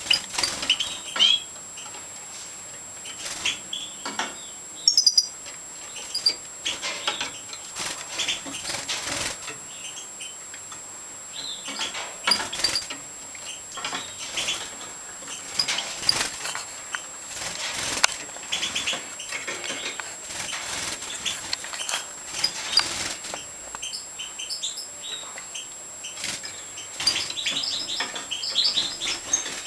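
European goldfinches of the brown-pastel major mutation fluttering their wings and hopping on and off perches, with short scattered chirps and call notes.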